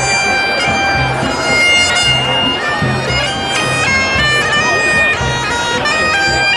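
Bagpipes playing a tune: held notes stepping from one pitch to the next, over a pulsing low beat.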